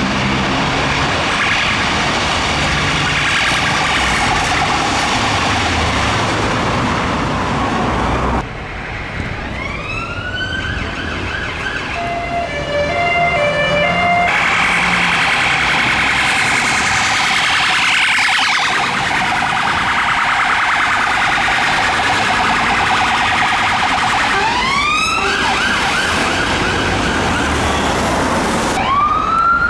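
Sirens of UK police cars responding through city traffic, heard in several short clips. They wind up into a rising wail, switch to a stepped alternating tone, and then to a fast warbling yelp, over steady traffic noise.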